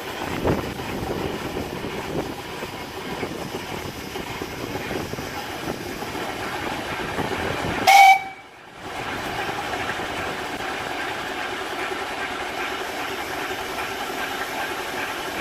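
A 7¼ inch gauge Tinkerbell miniature steam locomotive standing in steam with a steady hiss of steam, and one short blast on its whistle about eight seconds in.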